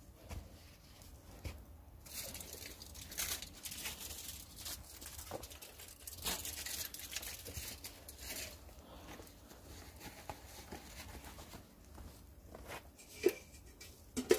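Intermittent rustling and crinkling of handled material, busiest in the first half, with a single sharp click near the end.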